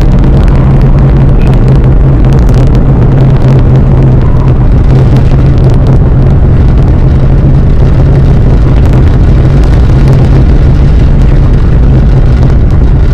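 Atlas V rocket's RD-180 main engine and two solid rocket boosters firing during ascent: a loud, steady, deep rumble with a ragged crackle.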